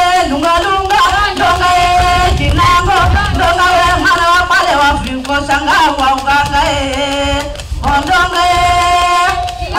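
A voice singing a traditional chant-like song with long held notes, breaking off briefly near the end, over irregular low thuds.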